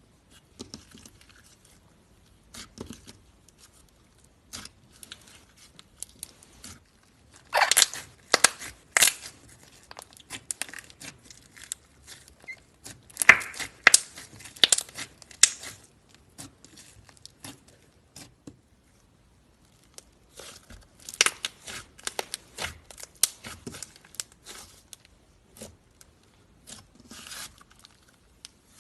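Slime being squeezed and stretched by hand, giving off crackling, popping clicks in irregular spells. The clicks are loudest about a quarter and about halfway through, then stop briefly past the middle before starting again.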